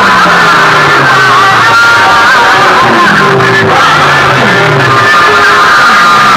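DJ music blasting at very high volume from stacks of horn loudspeakers: a high melody over bass tones that slide downward again and again.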